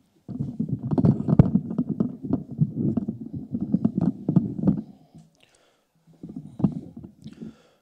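A roomful of people getting up from their chairs: chairs knocking and scraping and feet shuffling for about four and a half seconds, then a shorter flurry of the same near the end.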